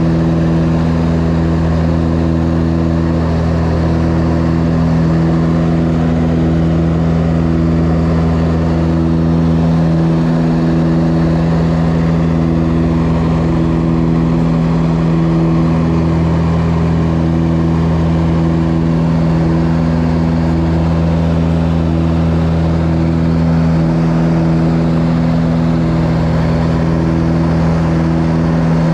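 Steady engine drone: a loud, even low hum with a faint regular pulsing.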